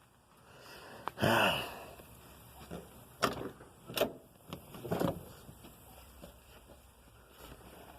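Gear being shifted about in a work truck: a creak about a second in, then several sharp knocks and clunks.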